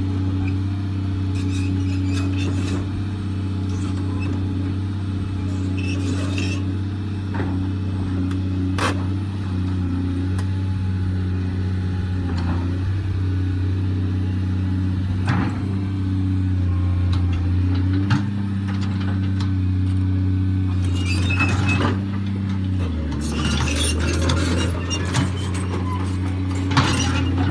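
Volvo excavator's diesel engine running at a steady speed, with scattered sharp metallic clanks and knocks. About two-thirds of the way through, the engine note drops lower, and clattering grows busier near the end.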